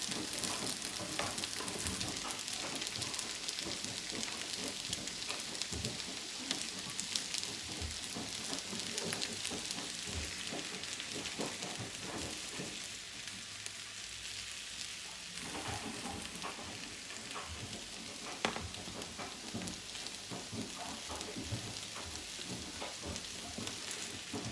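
Shrimp fried rice sizzling steadily in a hot pan while it is stirred, with scattered scrapes and clicks of the spatula against the pan.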